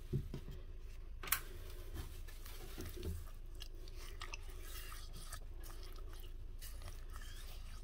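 A spoon mixing sesame seeds into a thick paste of ground dried figs and garlic: soft sticky scraping with small clicks, and one sharper click about a second in.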